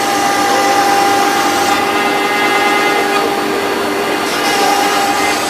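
1325 CNC router cutting wood: the spindle holds a steady whine over a dense cutting noise as the bit hollows out the workpiece. The high hiss eases off about two seconds in and comes back near the end.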